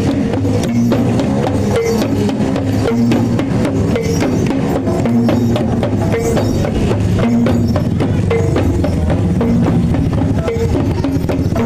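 Javanese jaranan/reog gamelan accompaniment playing: drums beaten in a busy, driving rhythm over repeating struck gong notes.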